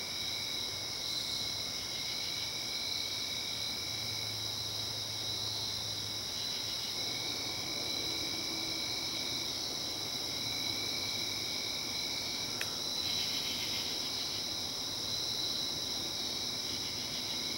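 Night chorus of crickets: a steady high chirring in several tones, with a lower trill that comes and goes. A single sharp click about two-thirds of the way through.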